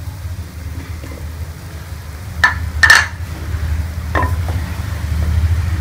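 Spiced gravy with moong dal wadiyan bubbling at the boil in a cooking pot, over a steady low rumble. Three sharp clicks come near the middle, the second the loudest.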